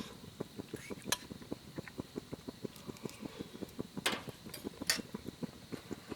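Wood fire crackling: a steady patter of small ticks, several a second, with sharp pops about a second in and twice near the end.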